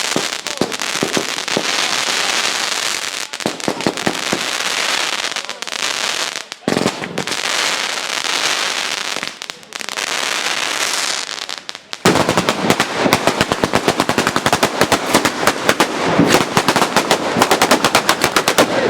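Batteria napoletana firecracker chain going off: a continuous rattling crackle of small charges with a couple of brief lulls, then about twelve seconds in it turns much louder into a very fast run of sharp bangs.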